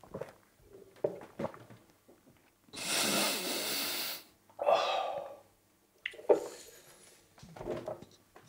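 A man breathes out hard after downing a shot of spirits: one long breathy exhale, then a shorter, lower grunt of breath. A few small knocks, like glasses set down on a wooden table, come before and after.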